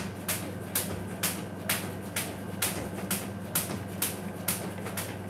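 Jump rope slapping the floor on each turn, a steady rhythm of about two sharp clicks a second, over a low steady hum.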